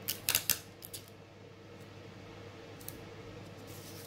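Clear adhesive tape pulled and torn off a roll in a few short, sharp rips near the start, then faint paper handling near the end as a paper frame is lifted and taped down.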